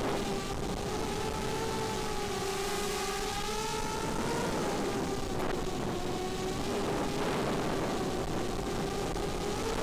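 FPV racing quadcopter's SunnySky 2204 2300kv brushless motors spinning 5-inch bullnose props in flight, a steady buzzing whine whose pitch wavers a little with throttle, over wind rush, as picked up by the onboard action camera.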